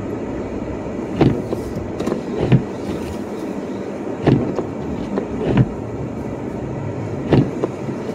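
Toyota RAV4 heard from inside the cabin while it moves slowly over snow: a steady running noise, with a short thump every one and a half seconds or so, the thumps falling in pairs.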